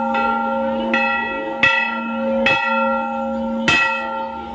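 Hindu temple bells struck by hand four times at uneven intervals. Each strike rings on, so the tones carry on under the next stroke.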